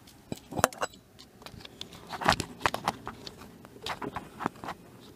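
Irregular light clicks, knocks and rustles of handling close to the microphone, in uneven clusters with a few sharper knocks.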